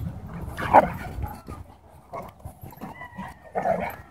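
Dogs barking while a German Shepherd and a German Shorthaired Pointer play-fight, with a loud bark about a second in and another shortly before the end.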